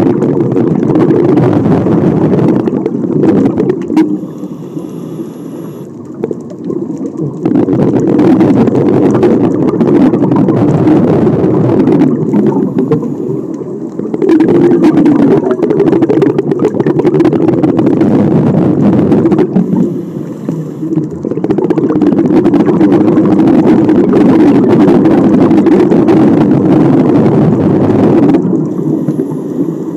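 Scuba diver's exhaled bubbles rushing from the regulator, heard through the underwater camera. The bubbles come in several long loud bursts separated by shorter quiet pauses while the diver breathes in.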